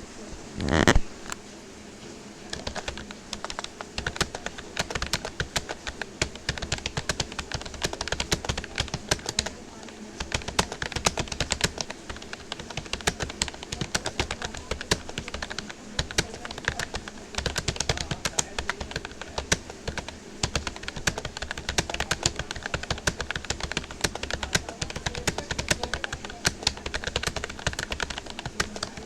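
Fast, continuous touch typing on a Rapoo computer keyboard: a rapid, irregular stream of key clicks and thocks. It follows a single loud thump about a second in.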